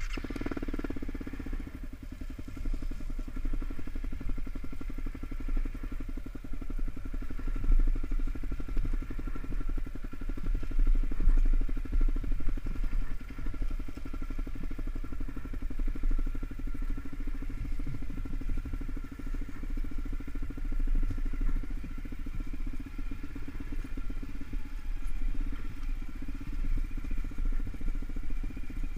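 Honda CRF250L's single-cylinder engine running as the dual-sport motorcycle is ridden along a dirt trail, with a steady low rumble that swells a little about a third of the way through.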